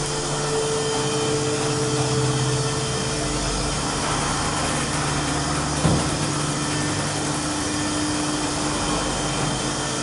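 Pollock wheelchair platform lift's drive motor running steadily as the lift travels down one floor, a constant mechanical hum whose pitch shifts slightly a few seconds in. A single short knock about six seconds in.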